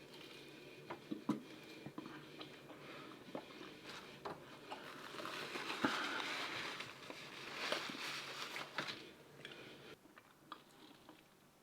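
A person eating close to the microphone: chewing, with scattered small clicks and mouth smacks and a louder, noisier stretch of chewing in the middle.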